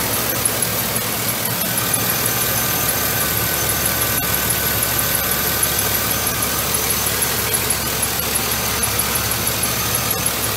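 A 2006 Chevrolet Silverado 1500's 4.8-litre V8 idling steadily, with a light regular ticking about four times a second and a faint high whine over it.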